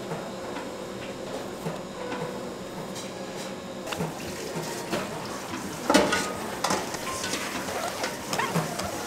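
Kitchen work sounds: dishes and utensils clinking and knocking over a steady background hum, with one louder knock about six seconds in.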